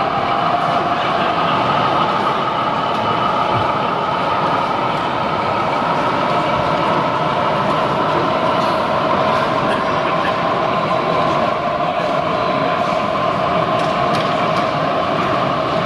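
Gauge 0 model train, a diesel locomotive with passenger coaches, rolling steadily along the track: an even running noise of wheels on rails with a steady whine over it.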